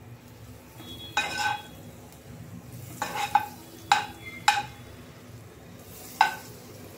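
Steel spoon pushing a cube of butter around a hot non-stick kadai, clinking sharply against the pan about six times over a faint sizzle as the butter melts.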